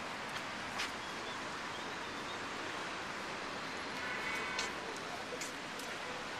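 Steady outdoor background noise, an even hiss, with faint voices and a few small clicks.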